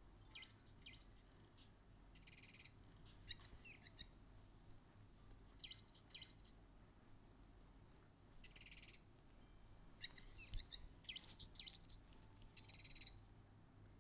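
High bird chirps and trills in short bursts every couple of seconds: quick sweeping chirp phrases alternating with brief buzzy trills.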